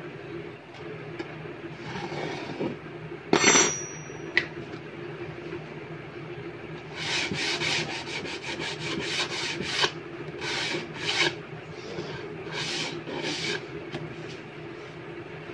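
A small blade scraping and rubbing along the edge of a melamine-faced particle-board panel: one sharp scrape about three seconds in, then quick runs of repeated strokes in the second half, over a steady low hum.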